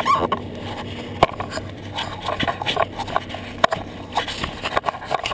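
Handling noise from a GoPro being taken down by a gloved hand: irregular knocks, clicks and rubbing on the camera housing, with a few sharp knocks. A faint steady low hum runs underneath.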